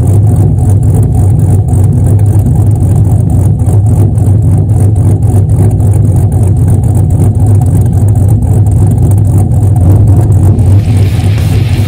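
2002 Camaro SS's LS1 V8, with a BTR Stage 1 cam, long-tube headers and true dual exhaust, idling steadily at the tailpipes with a tuned choppy lope, the chop coming from ignition timing pulled at idle so the idle speed keeps over-correcting. Rock music fades in near the end.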